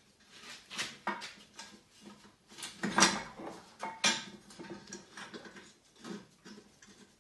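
Irregular metallic clinks and knocks from a brake caliper, its mounting bolt and hand tools being handled against the wheel hub, the sharpest knock about three seconds in and another about a second later.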